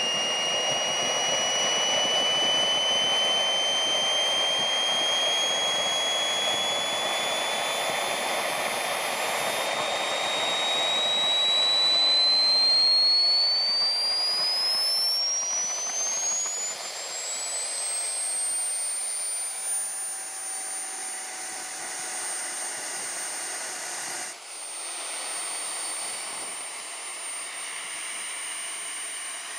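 KingTech K-80 model jet turbine running, its high whine rising steadily in pitch for about the first seventeen seconds as it spools up, then holding at a steady pitch over a rushing exhaust noise.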